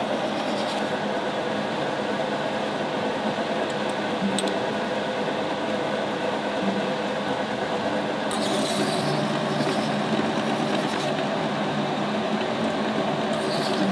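Workshop machinery running steadily, with a hum of several held tones. A sharper hiss joins for about three seconds past the middle, and there is a single click about 4 s in.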